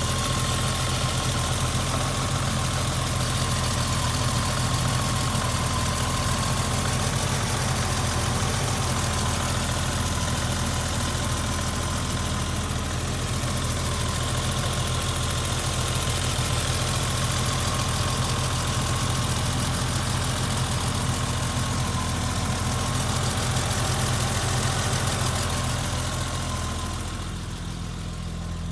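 1988 BMW engine idling steadily just after a cold start, with a thin steady whine over the engine note. The sound dips briefly in loudness near the end.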